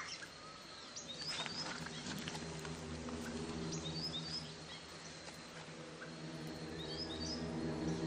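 Rainforest ambience: short high bird chirps in small clusters about a second, four and seven seconds in, over a faint steady insect hum. Beneath them runs a low sustained musical drone that grows louder near the end.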